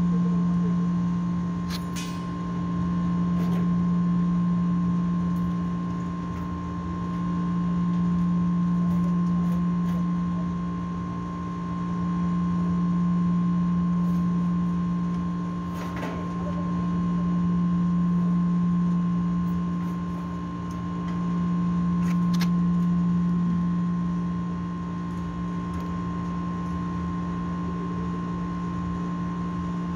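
Air-conditioning condenser unit running with its newly fitted piston compressor, a steady electrical hum that swells and fades in slow waves about every four to five seconds, then holds steady near the end. A few faint clicks sit over it.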